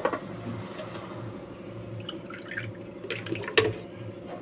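Water being poured from a cup into a pan on a gas stove, with a steady low hum underneath. Short knocks of the cup against the pan near the start and about three seconds in, the loudest about three and a half seconds in.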